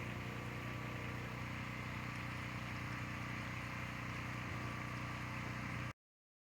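A machine engine idling steadily, then cutting off suddenly about six seconds in.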